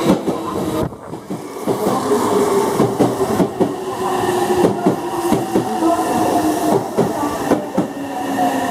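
Meitetsu 3100 and 1700 series electric train arriving alongside the platform: wheels clacking over rail joints in a repeated rhythm, with a steady whine running underneath.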